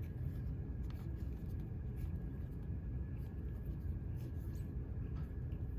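Trading cards being handled and flipped through by hand, a few faint soft ticks, over a steady low room rumble.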